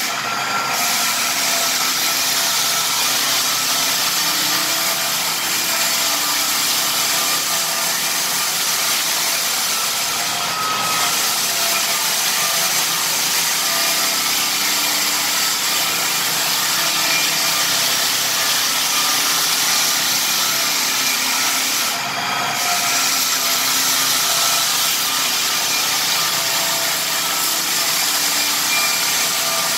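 Lägler Hummel drum floor sander running across rift red oak flooring: a steady loud hiss of abrasive on wood with a faint motor whine under it. The hiss briefly thins three times: about half a second in, near the middle, and about three quarters of the way through.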